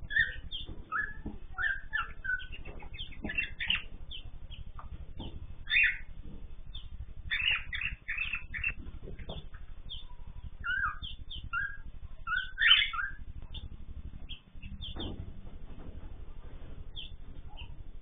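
An aviary of cockatiels and finches chirping in short, scattered calls, busiest in the middle, over a low steady hum.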